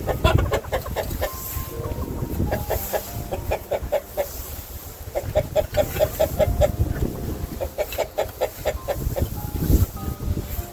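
Domestic chickens clucking in quick repeated runs, several clucks a second, pausing and starting again, over a low uneven rumble.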